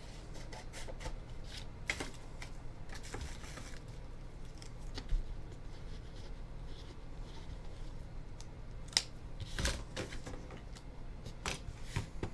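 Scattered light clicks, taps and short rustles of small objects being handled on a tabletop, with a sharper click about nine seconds in and a brief rustle just after it, over a steady low hum.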